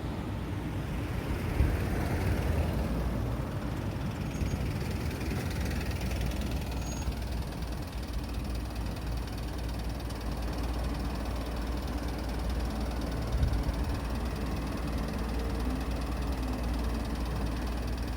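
Motor vehicle engines running, a steady low rumble with no sudden events.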